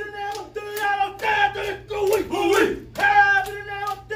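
Male voices chanting in unison in a Polynesian group dance: short, held, shouted-sung phrases, one after another, punctuated by sharp percussive hits.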